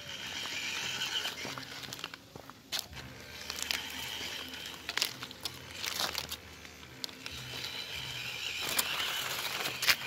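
MN99S remote-control crawler driving over a leafy dirt trail, its small electric motor and gears whirring in spurts. Dry leaves and twigs crunch and crackle throughout, with a sharp crack near the end.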